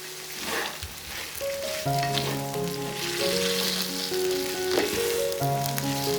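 Food sizzling steadily in hot fat in a frying pan, with a couple of stirring scrapes.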